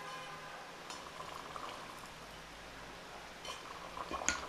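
Red-hot knife blade of saw-blade steel fizzing and bubbling as it is quenched in a tall tube of liquid to harden it, with scattered crackles and a few sharper ones near the end.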